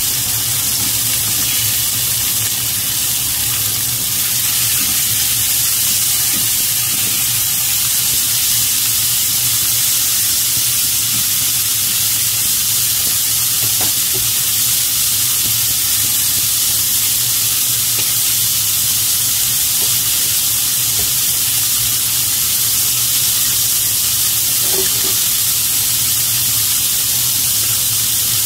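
Slices of pork belly sizzling steadily in a nonstick frying pan, with an occasional faint pop of spitting fat.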